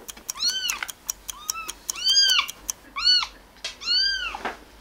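Tiny orange kitten meowing over and over: about six high-pitched, arching cries, each under half a second, with light clicks between them.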